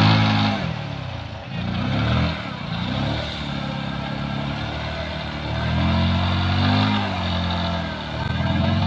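TVS Apache RTR's single-cylinder engine revving hard, rising and falling back several times, while the stationary bike's rear tyre spins in loose sand.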